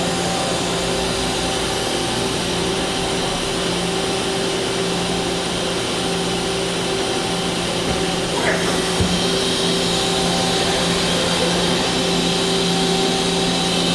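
Mazak Quick Turn Nexus 200-IIM CNC turning center running, a steady machine hum and hiss with a few clicks about eight to nine seconds in.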